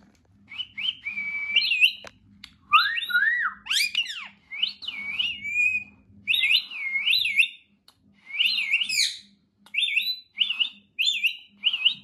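Rose-ringed (Indian ringneck) parakeet whistling a string of high, sliding phrases that swoop up and down, in short runs with brief pauses.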